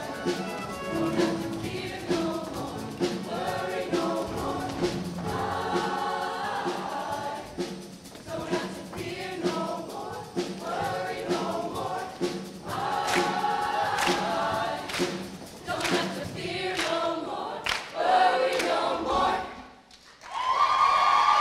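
Show choir of mixed voices singing an up-tempo number over a backing with a sharp, regular beat, building to a final hit. The music cuts off about twenty seconds in, and the audience breaks into cheering right at the end.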